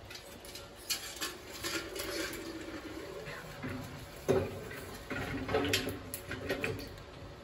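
Small metal clicks, taps and rattles as a cryovial cane is lowered into the neck of a liquid-nitrogen storage dewar and pressed into place, with a louder knock about four seconds in.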